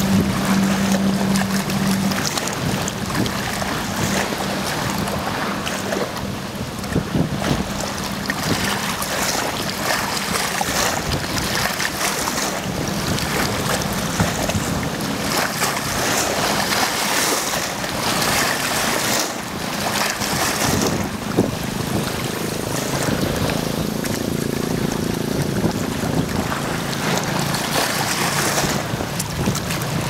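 Wind-driven waves of choppy, muddy water lapping and splashing against the shore and wooden posts in irregular surges, with wind gusting on the microphone. A low steady hum is heard for the first couple of seconds.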